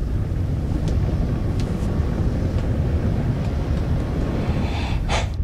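A steady deep rumble, with a brief breathy rush a little after five seconds in.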